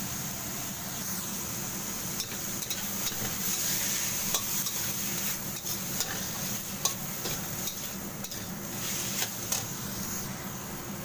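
Shrimp, cabbage and carrot sizzling in oil in a stainless steel wok while a metal spatula stir-fries them. The spatula scrapes and clicks against the wok over a steady sizzle.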